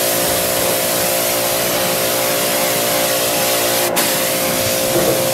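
Greenworks pressure washer running: a steady motor hum under the hiss of the high-pressure water jet spraying into an engine bay.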